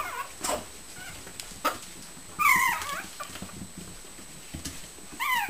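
Mini Shichon puppies whining and yipping as they play: a high, wavering whine about two and a half seconds in and a quick run of short falling yips near the end, with a few small knocks in between.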